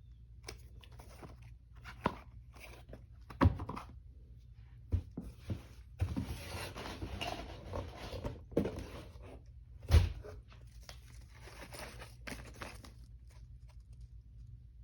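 Kit box and packaging being handled and unpacked: a series of knocks and thunks, the loudest about ten seconds in, with a stretch of rustling and crinkling in the middle.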